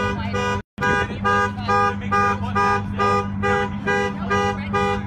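Car alarm sounding: the horn honks in a fast regular rhythm, about two and a half honks a second, over a steady low hum. The sound cuts out completely for an instant under a second in.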